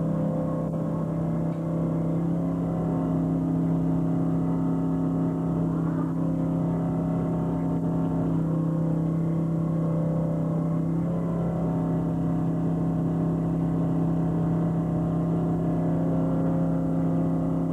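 A fishing trawler's engine and deck machinery running steadily: a constant low drone with a strong, even hum, whose upper tone shifts slightly a couple of times.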